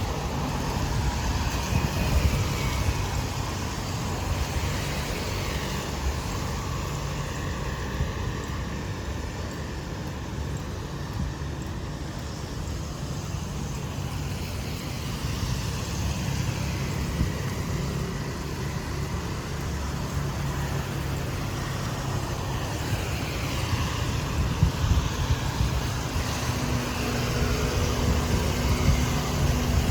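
Street traffic going by: a steady wash of motorbike and car engines passing, with wind rumbling on the microphone.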